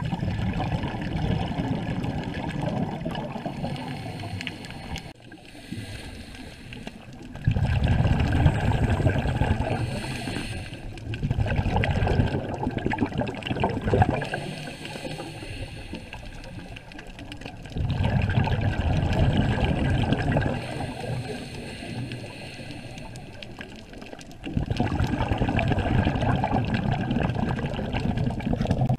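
Scuba diver breathing through a regulator underwater: exhaled bubbles gurgle in loud bursts of a few seconds each, five times, with quieter gaps between breaths.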